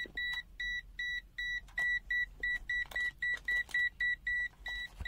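Chauvin Arnoux CA5215 multimeter's buzzer in non-contact voltage (NCV) mode, giving short high-pitched beeps about four times a second. This is the alert that it senses a live (hot) wire nearby. A few faint clicks come between the beeps.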